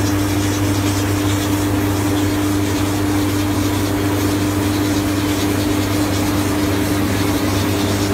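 Self-propelled brick-making machine running: a steady engine drone with a constant hum that holds the same pitch throughout.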